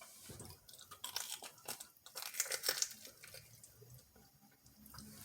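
Close-up crunching and chewing of a hot, crispy fried chicken dumpling. There are irregular crackly bites, densest in the middle.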